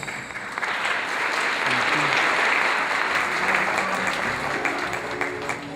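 Audience applauding. The clapping swells about half a second in and stops near the end, with music playing faintly underneath.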